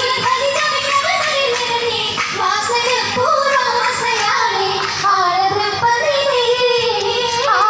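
Oppana song: singing voices carrying a wavering, ornamented melody over music, without a break.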